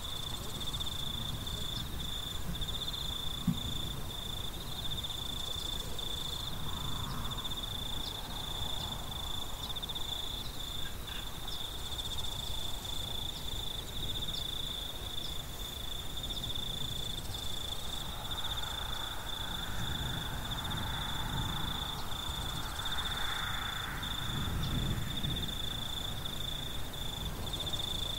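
Insects trilling in one steady, unbroken high tone, over a constant low rumble.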